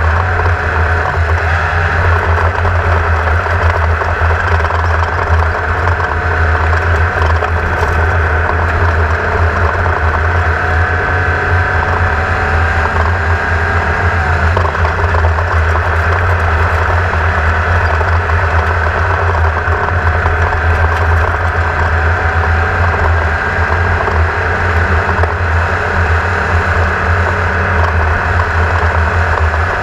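Class 1600 off-road race buggy's engine running steadily at race speed, heard on board the car: a deep, unbroken drone with road and chassis noise over it. The engine note sags briefly about halfway through, then holds steady again.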